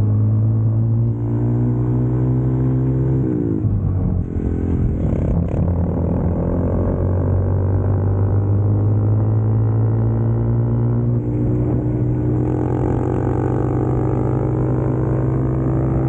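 Honda Grom motorcycle's single-cylinder engine through a Tyga high mount exhaust, ridden on the road. The engine note holds steady, drops about three seconds in as the revs come off, then slowly climbs again in the last few seconds.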